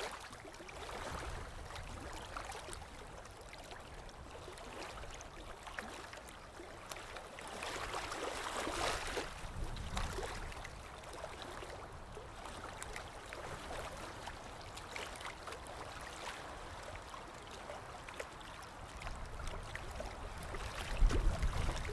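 Stream water flowing steadily, an even rushing hiss that swells briefly about eight seconds in. A low rumble comes in near the end.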